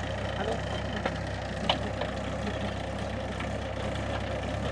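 Tractor diesel engine running steadily under load while its rotavator's blades churn through soil, with two sharp clicks about a second and a second and a half in.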